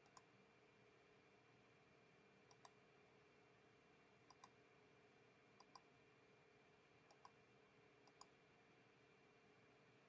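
Faint clicks from a computer pointing device, mostly in quick pairs, about six times over near-silent room tone.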